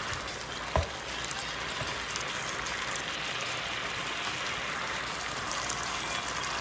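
Chicken strips sizzling and bubbling in a sauce in an electric skillet: a steady crackling hiss, with one low knock about a second in as the pan is stirred with a silicone spatula.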